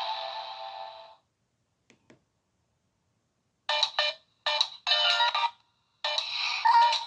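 Nokia 6111 mobile phone playing its built-in polyphonic ringtones. One tune fades out within the first second, then after a pause with two faint clicks a new ringtone starts with three short stabs and runs on into a melody.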